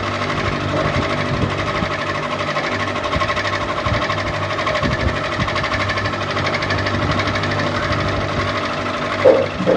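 Ceiling fan running, with a steady hum and a fast, even mechanical rattle. A short, louder noise comes near the end.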